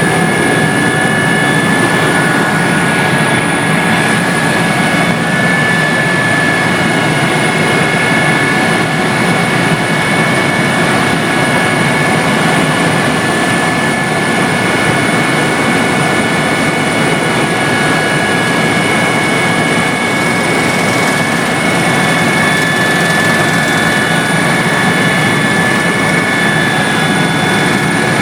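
Helicopter running steadily in flight: a loud, even rush of engine and rotor noise with steady high whines over it.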